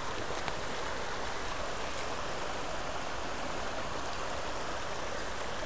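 Creek water running: a steady, even rushing noise, pretty noisy.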